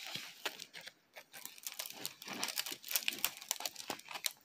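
Clear plastic wrapping on a rolled diamond painting canvas crinkling in irregular crackles as hands turn and unroll it.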